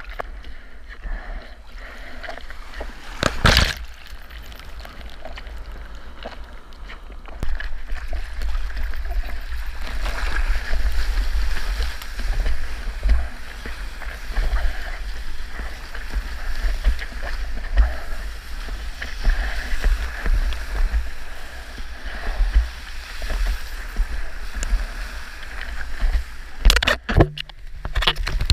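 Sea water sloshing and splashing around a surfboard under a constant low rumble, with a sharp splash about three seconds in. The rush of water grows louder from about seven seconds in.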